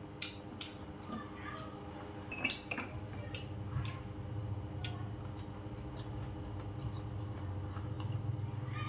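Chopsticks and a metal spoon clicking and clinking against ceramic bowls and a plate as food is picked up, a scattering of light, separate clicks.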